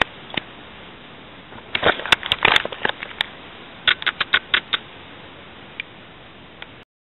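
Handling noise of the webcam as it is grabbed and turned: two quick clusters of clicks and taps over a low steady hiss. The sound cuts off abruptly near the end.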